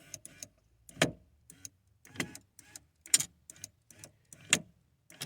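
Power window motor running the window regulator in a 1994–2004 Ford Mustang door, with sharp pops roughly once a second as the motor's gear jumps the regulator's gear teeth. The regulator bracket is out of adjustment and does not hold the gears in mesh.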